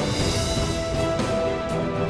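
Background music: held notes over a steady, dense low beat.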